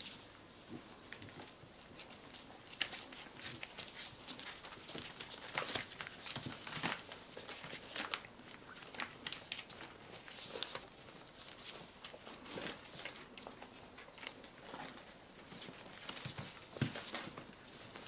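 Newspaper crinkling and rustling under a Pembroke Welsh Corgi and her puppies as they play-wrestle on it, in irregular scrapes and crackles with a few sharper ones.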